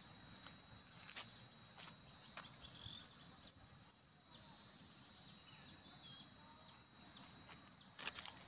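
Faint, steady high-pitched drone of insects, crickets or cicadas, swelling and easing at times, with a few soft clicks and one sharper click near the end.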